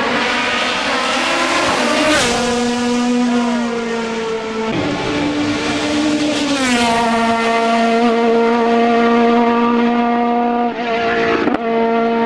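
Racing car engine running at high revs, its pitch held steady for seconds at a time, with a few sudden breaks and one downward slide in pitch.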